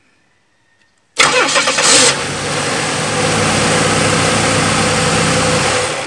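Small GM four-cylinder car engine being started: about a second in the starter cranks briefly, the engine catches, and it settles into a steady idle. As the running engine pulls vacuum, a vacuum-diaphragm switch cuts power to the added starter relay so the starter drops out.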